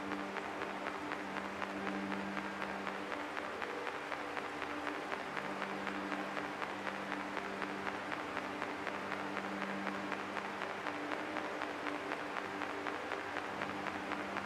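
Experimental drone music: a held low chord of steady tones that swells and fades, over a dense, even crackling hiss.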